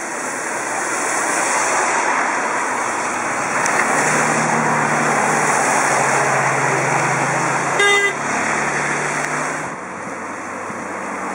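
Cars passing on a wet road: a steady hiss of tyres on water, with a car engine's low, even hum coming in about four seconds in and fading out near ten seconds. A short car horn toot sounds about eight seconds in and is the loudest moment.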